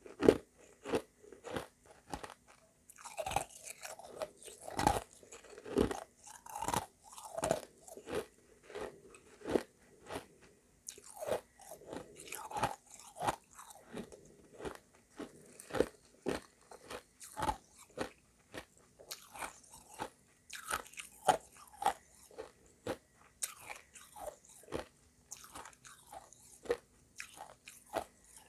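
Close-up chewing of hard refrozen shaved ice mixed with crushed ice: a steady run of sharp crunches, about two to three a second.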